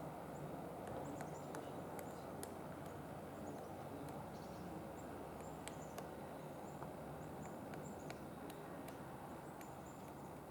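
Pileated woodpecker whacking at a tree trunk while chasing bugs: faint, irregular single knocks spaced unevenly, not a steady drum roll.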